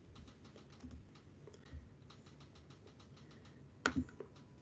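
Faint computer keyboard typing and clicking, many quick light clicks, with one sharper click a little before the end.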